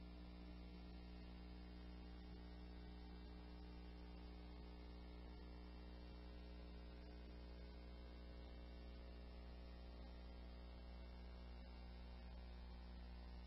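Near silence, with a faint, steady electrical mains hum: a low tone and its overtones, unchanging throughout.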